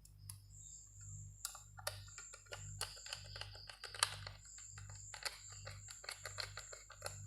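Faint, rapid, irregular clicks and taps of small hardware being handled, a screwdriver and the metal SSD drive bracket being worked into a laptop's drive bay, starting about a second and a half in, over a steady low electrical hum.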